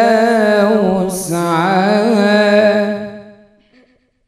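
A boy reciting the Quran in a melodic chanting style, holding long wavering notes in two phrases; the second phrase ends the verse line about three seconds in.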